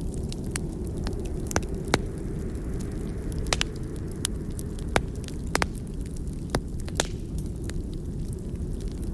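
Burning log crackling, with about a dozen sharp pops at irregular moments over a steady low rumble.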